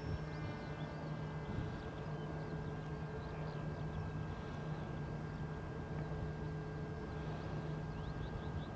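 Outdoor field ambience: wind rumbling on the microphone under a steady faint hum, with faint high bird chirps near the end.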